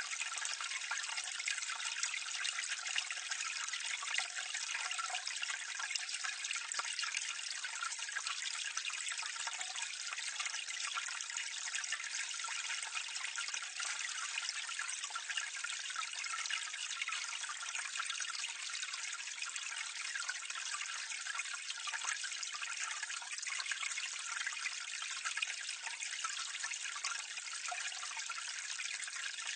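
Water running steadily into a drain or gully from a drainpipe, heard close up: a continuous splashing trickle, bright and hissy with little low rumble.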